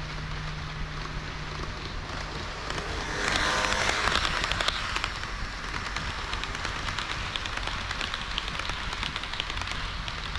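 HO-scale model train of KiHa 40 and KiHa 58 diesel railcars running on the layout track: a steady rolling rattle with many quick clicks of the wheels on the rails. It grows louder for about two seconds from about three seconds in.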